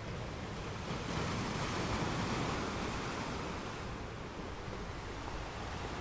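Underwater ambient noise picked up through a diving camera's housing: a steady rushing hiss that swells for a couple of seconds about a second in, then settles again.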